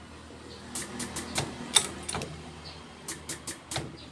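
Irregular sharp clicks and taps in small clusters as tools and parts are handled during diesel injector nozzle repair, with a faint steady hum underneath.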